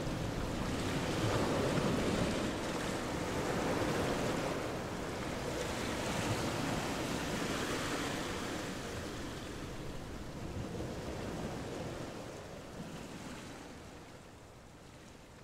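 Sea surf washing onto a sandy beach, with wind blowing across the microphone, fading down near the end.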